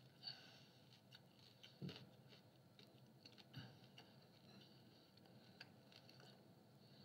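Faint chewing of a mouthful of pizza, with small scattered mouth clicks.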